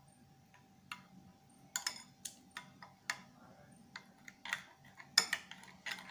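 A metal spoon stirring a thick yogurt and chilli marinade in a glass bowl, clinking against the glass in irregular ticks, with the loudest strike about five seconds in.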